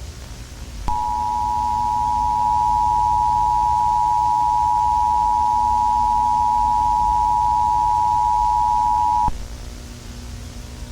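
Emergency Alert System attention signal: two steady tones sounding together, coming in about a second in and cutting off sharply some eight seconds later, over a low background hum.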